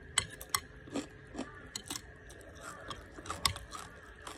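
Close-up eating sounds of someone eating noodle soup: wet chewing and mouth smacks, with a scatter of short, sharp clicks at irregular intervals.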